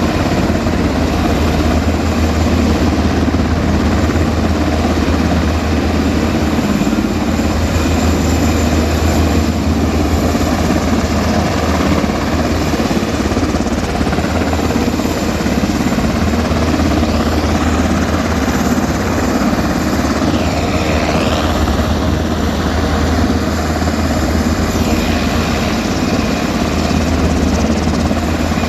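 Rescue helicopter's rotor and turbine running steadily, loud and close, with a deep, even rotor beat under a broad whooshing noise.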